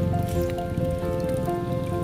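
Background music: a melody of held notes changing every fraction of a second over a steady low pulse.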